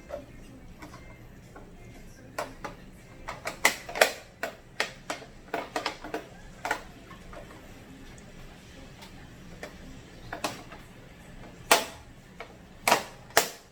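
Sharp clicks and knocks of cover pieces being handled and snapped into place on a ring light, a quick run of them from about two to seven seconds in and a few more near the end.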